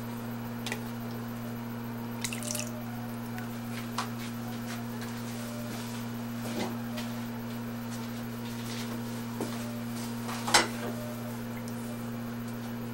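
Water dripping and splashing in a plastic tub as hands move a glass wine bottle about under the water, with small scattered clicks and one sharper splash about ten and a half seconds in. A steady low hum runs underneath.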